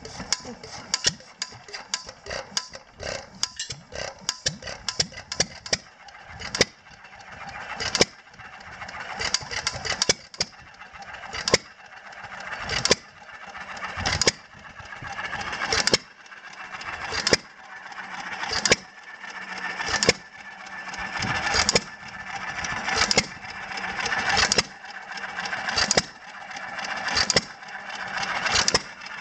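John Deere Model E 1.5 hp single-cylinder hit-and-miss engine running just after starting. For about the first six seconds it makes a quick, irregular clatter. After that it settles into single sharp firing bangs about every one and a half seconds, coasting between them: the hit-and-miss governor lets it fire only when it slows.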